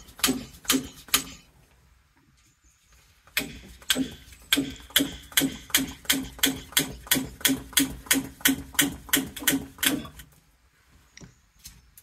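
Small hand air pump worked in quick, even strokes, about three a second, pumping up a combi boiler's expansion vessel through its Schrader valve. There is a short pause about two seconds in, then steady pumping until near the end. The vessel is being repressurised to push the remaining water out of the drained boiler.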